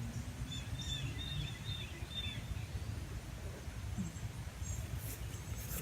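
Outdoor pond-side ambience: a steady low rumble with a small bird chirping repeatedly in the background for the first couple of seconds.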